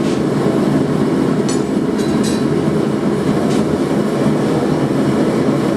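Forge running with a steady, loud low rush, with a few faint light clicks on top, as the flat stock heats in it.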